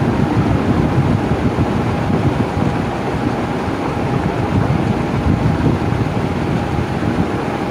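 Electric fan running steadily: an even rushing of air with a faint steady hum above it.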